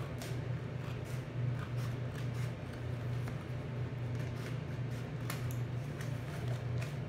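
Scissors snipping and sliding through shiny metallic paper, with scattered short cuts and crinkles, over the steady low hum of a bathroom exhaust fan.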